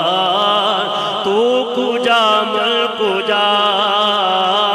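Male voice singing a naat, drawing out a long wordless melismatic phrase with sliding pitch between lines of the refrain, heard through a public-address system.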